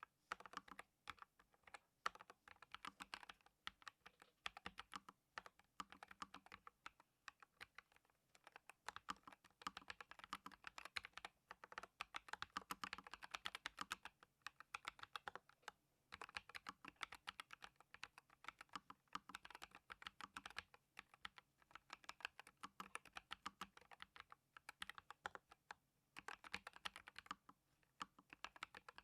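Typing on a NuPhy Air 75 V2 low-profile mechanical keyboard with factory-lubed Aloe linear switches: rapid runs of key clacks, broken now and then by short pauses.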